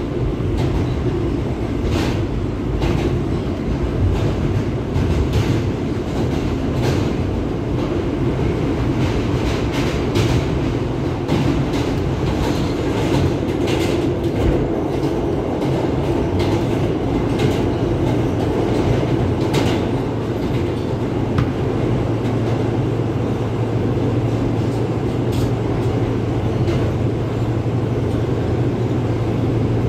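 Inside an R160 subway car as it runs: a steady rumble from the train with scattered sharp wheel clicks. A low steady hum grows stronger about halfway through.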